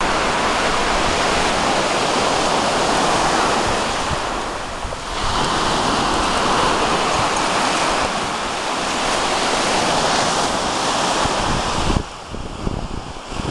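Surf breaking on a sandy shore, mixed with wind rushing over the microphone; the whole sound drops noticeably quieter about twelve seconds in.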